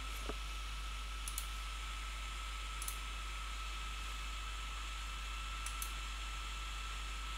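Computer mouse clicked three times in quick double clicks, sharp and light, over a steady hiss with a faint high whine.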